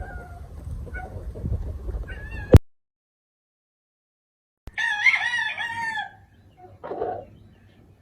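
Low rumbling noise with faint bird calls, cut off by a sharp click and two seconds of dead silence; then a gamefowl rooster crows once, about a second long, and a short lower call follows.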